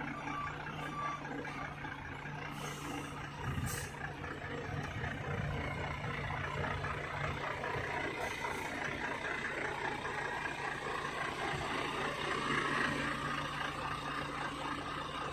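Truck engine running steadily while reversing, its reversing beeper still sounding at the very start, with two short hisses about three seconds in.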